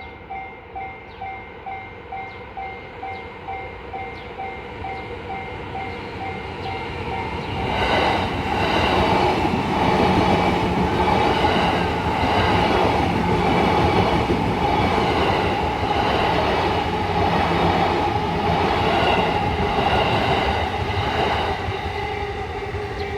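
Railway level-crossing warning bell dinging in a steady repeated beat, about twice a second. From about 8 seconds in, a Yamanote Line electric train passes over the crossing, and its rumble and wheel clatter take over, easing off near the end.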